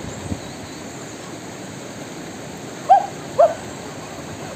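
River water running over rocks in a steady rush. About three seconds in, two short rising-and-falling yelps half a second apart, the loudest sounds here.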